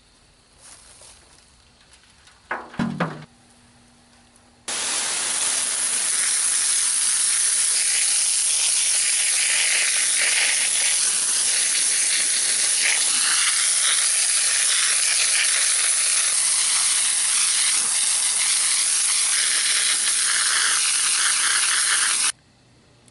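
A garden hose's water jet starts suddenly about five seconds in, hissing and spattering against a dirt-covered aluminum ant-colony cast and the mud around it, then cuts off suddenly near the end. A short, sharp sound comes a couple of seconds before the spray starts.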